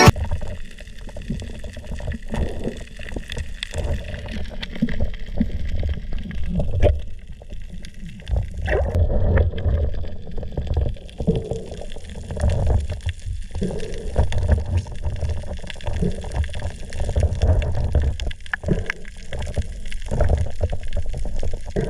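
Muffled water sloshing and gurgling around a camera held underwater, with an unsteady rumble and a few short clicks.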